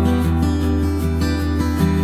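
Background music: acoustic guitar plucked and strummed over a steady low bass.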